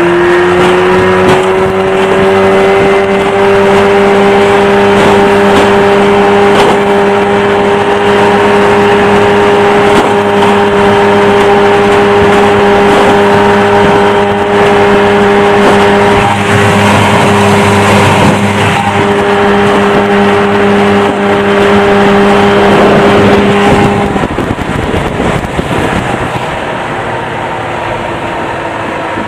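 1986 Yamaha 30 hp two-stroke outboard motor running flat out at full throttle, a loud, steady engine note. About 24 seconds in the engine note drops lower and quietens.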